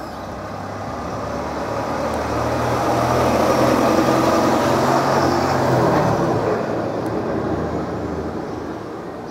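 A heavy road vehicle passing close by: its engine hum and tyre noise swell over about three seconds, stay loud for a few seconds, then fade away.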